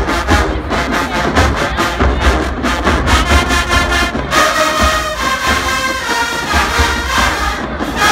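Marching band music: a drumline beating out a rapid cadence, then about four seconds in the brass section comes in with held, loud chords over the drums.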